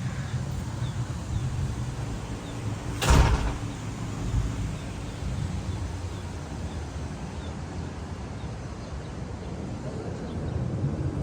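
Steady low rumble of the outdoor surroundings with one loud, sharp thump about three seconds in.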